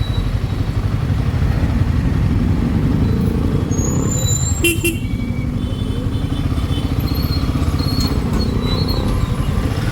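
Royal Enfield Himalayan 452's single-cylinder engine running on the move, mixed with rumbling wind on the microphone. A short sharp sound comes about five seconds in.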